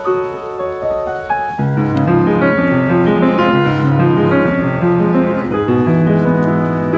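Grand piano playing an instrumental passage: a single melodic line at first, then lower chords and a bass line come in about one and a half seconds in and the sound grows fuller.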